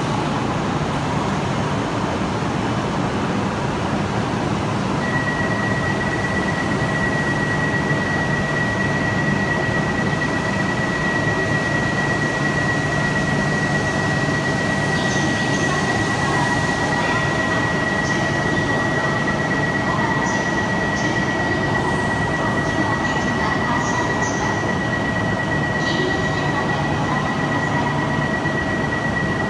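Shinkansen train in an underground station with a steady, loud rumble and hum. A single steady high tone comes in about five seconds in and holds, and faint ticks and squeaks are scattered through the second half.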